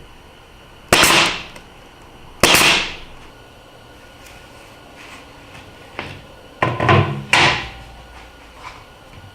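Sharp knocks, each ringing off briefly: two single hits, then a quick cluster of three near the end.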